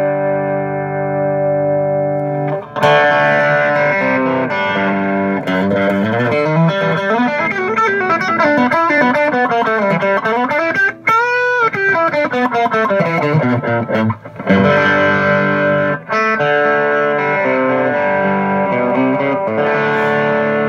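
Electric guitar with single-coil pickups, played through a compressor (a modified Ultra Bass Smasher) feeding a low-gain overdrive pedal into a small bench amp. A chord rings for the first few seconds, then a sustaining driven riff follows, with notes sliding up and down in the middle and chords again towards the end. The compressor supplies the sustain, so the overdrive stays smooth and not gritty.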